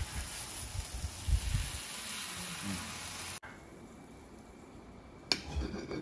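Steaks sizzling on a hot barbecue plate, with a few soft knocks of the tongs; the sizzle cuts off abruptly about three and a half seconds in. It then goes quieter, with a sharp clink of cutlery on a plate near the end.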